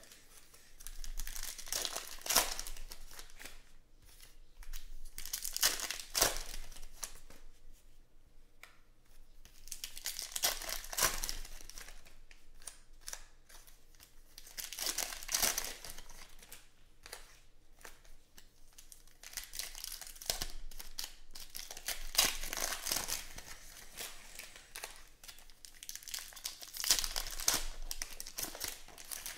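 Foil trading-card pack wrappers crinkling and tearing as packs of Panini football cards are handled and ripped open, in loud bursts every few seconds with quieter rustling between.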